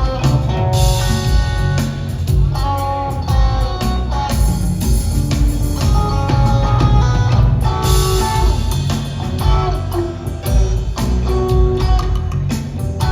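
Live rock trio playing an instrumental jam: electric guitar lines over bass and a drum kit keeping a steady beat, recorded on a phone from the audience.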